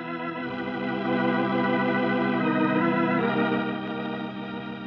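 Organ playing held chords that swell about a second in, change chord a little after three seconds, and then slowly fade: a radio drama's musical bridge between scenes.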